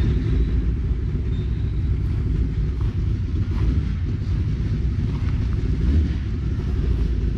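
Engine idling with a steady, low rumble.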